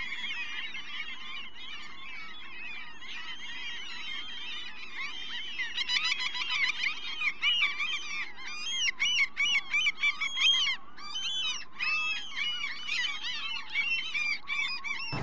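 A dense chorus of frogs calling: many overlapping high, chirping calls that grow louder and busier about six seconds in.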